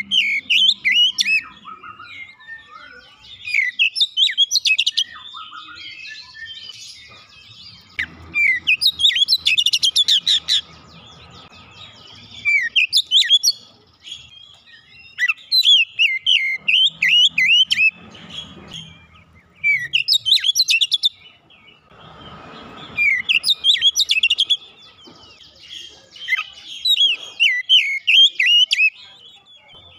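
Oriental magpie-robin (kacer) singing: loud bursts of rapid, varied whistles and chattering notes, repeated every few seconds with short pauses between phrases.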